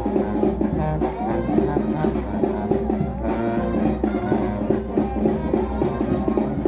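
Brass band music, horns playing over a drum beat.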